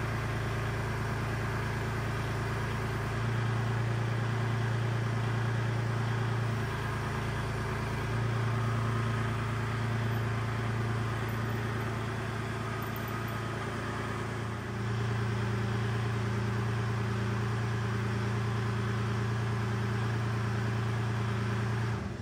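Kubota L2501 compact tractor's diesel engine running at a steady speed while its front loader lifts and carries an engine block on a chain. The engine gets louder about three seconds in and dips briefly twice.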